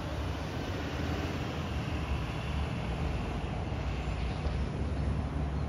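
Steady low rumble of road traffic: vehicle engines running as a pickup truck drives past close by.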